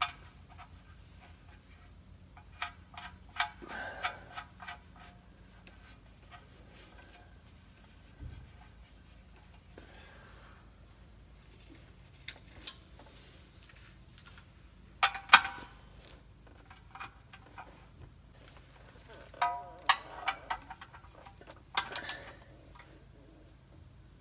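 Scattered clicks, clinks and knocks of gloved hands and tools handling parts on the underside of a utility vehicle during an oil change, the sharpest about halfway through and a cluster near the end. A faint, evenly repeating high chirp sounds behind them.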